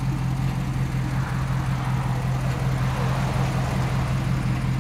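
Jeep Grand Cherokee's engine idling steadily with a constant low hum.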